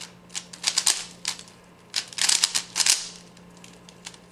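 Rubik's Cube layers being turned quickly by hand, plastic clicking and clacking in fast bursts. One burst comes in the first second and another about two seconds in, with a pause near the end. A faint steady hum runs underneath.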